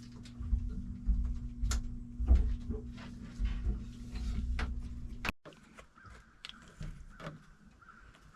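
Scattered clicks and knocks from hands working on boat battery wiring, over a steady low hum. The hum cuts off suddenly about five seconds in, leaving a faint steady high tone and a few more clicks.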